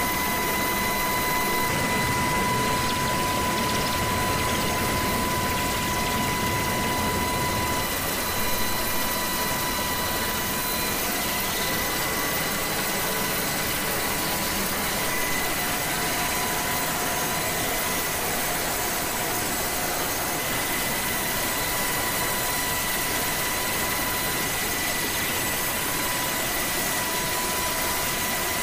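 Helicopter turbine engines and rotor running steadily: an even rush with a constant high whine.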